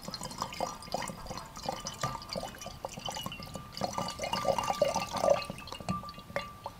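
A thin stream of liquid pouring into a glass beaker already holding liquid, trickling with small splashes and bubbling plinks that crowd together about four to five seconds in.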